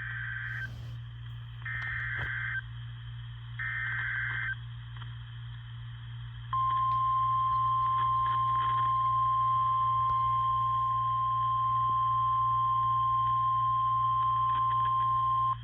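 NOAA Weather Radio EAS alert signal. It opens with three short bursts of warbling SAME data tones about two seconds apart, then the single-pitch 1050 Hz warning alarm tone sounds steadily for about nine seconds, introducing a new severe thunderstorm warning. A low steady hum from the radio reception runs underneath.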